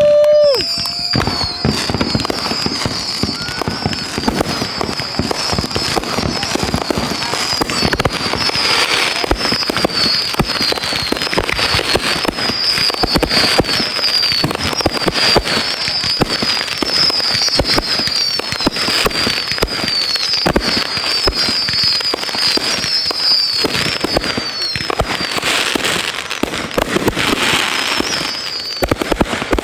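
Fireworks going off in a dense, continuous crackle of pops, with a run of short, high falling whistles repeating over the crackle for most of the time.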